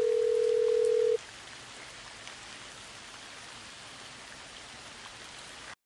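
A steady single-pitched electronic tone, a beep, stops about a second in; after it a steady, even hiss runs until it cuts off suddenly near the end.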